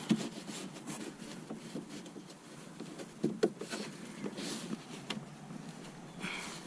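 Hands working a kayak seat's bottom pad and its plastic push fasteners by feel: light rubbing and scraping with scattered soft clicks and taps.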